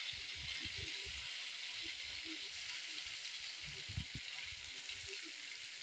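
Batter-coated idli pieces deep-frying in hot oil: a steady sizzling hiss with small crackles, and one sharper pop about four seconds in.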